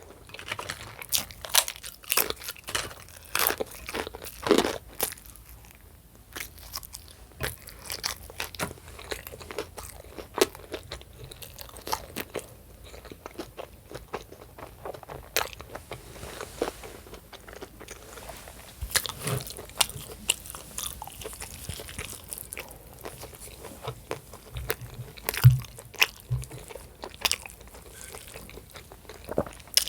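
Close-up eating sounds: a person chewing and biting food with irregular wet smacks and crunches, some louder than others.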